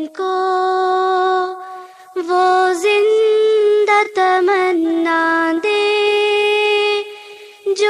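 Background music: a high voice singing slow, long held notes that slide between pitches, with brief pauses and no drums or beat.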